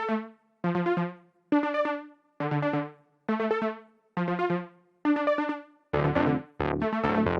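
Electronic background music: synthesizer chord stabs repeating about once a second, each fading out before the next, with a bass line and beat coming in about six seconds in.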